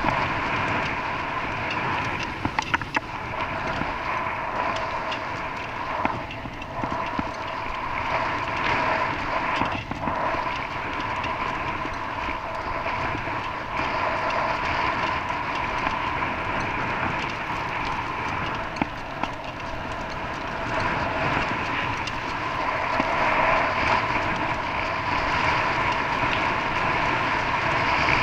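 Steady running noise of a vehicle in motion, with a few sharp rattling clicks a little under three seconds in.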